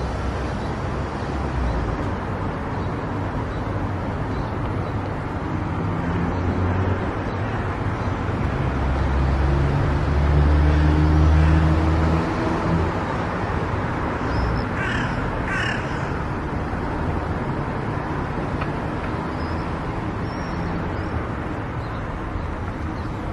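Steady road and tyre noise of a car driving on an expressway, with a low rumble that swells about halfway through. About two-thirds of the way in come two short, harsh calls.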